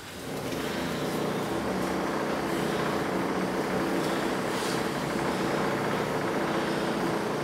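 A group of people voicing together on the breath: many voices blending into a steady drone of several held tones, with breath noise over it.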